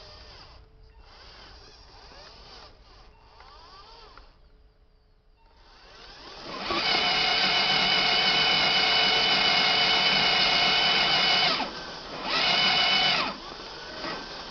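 Radio-controlled truck's electric motor and gearbox whining under load, loud and steady for about five seconds from around six and a half seconds in, then again in a short burst near the end; before that, fainter motor whirring that starts and stops.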